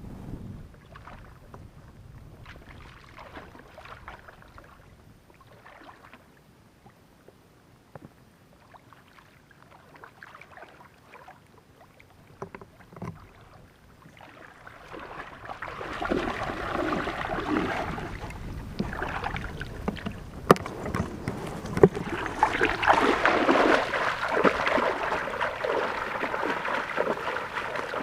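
Water splashing and sloshing as a person wades through shallow water, faint and sparse at first and growing much louder about halfway through, with a few sharp splashes.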